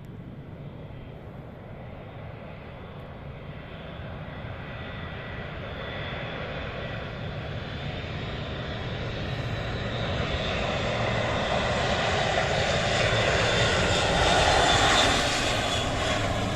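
Military aircraft on landing approach, its engines growing steadily louder as it nears and passes, loudest near the end before easing off.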